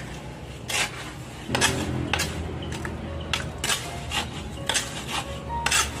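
Small hand trowel stirring and scraping wet cement mortar against the concrete ground, in irregular gritty strokes about two a second.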